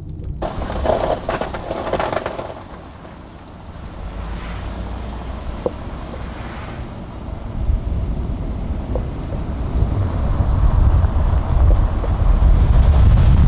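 Lifted single-cab Z71 pickup truck driving, a steady engine and road rumble. A rush of noise comes in the first two seconds, and a deeper, louder rumble builds over the last few seconds.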